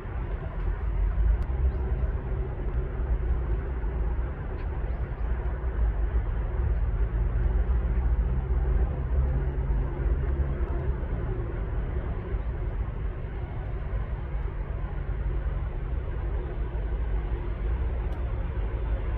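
Steady low outdoor rumble with faint humming tones and no distinct events.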